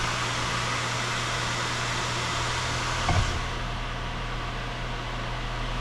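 Pro-Cut on-the-car brake lathe running steadily, its motor spinning the hub and brake rotor with a steady hum and hiss. A short knock about three seconds in, after which the higher hiss is softer.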